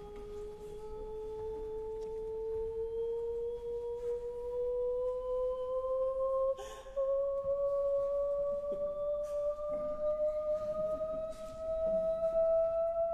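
A single pure, steady tone gliding slowly and evenly upward in pitch, with a faint overtone. A short click and a brief dip interrupt it about halfway through.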